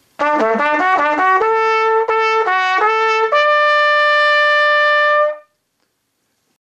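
Solo trumpet playing a short fanfare jingle: a quick run of short notes, a few longer notes, then a high note held for about two seconds that stops cleanly.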